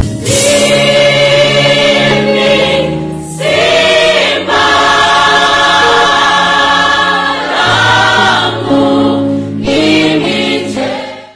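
Mixed-voice high-school gospel choir singing in harmony, holding sustained chords in phrases with short breaks, fading out near the end.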